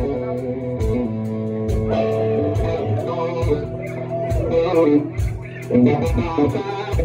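Rock music: electric guitar playing chords and held notes, with drum hits keeping a steady beat.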